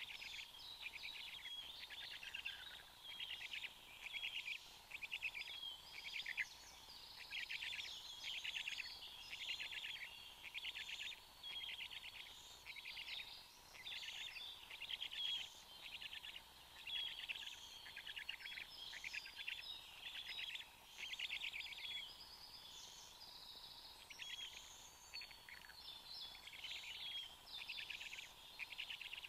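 Songbirds singing, short trilled phrases following one another every second or so, with a faint steady hum underneath.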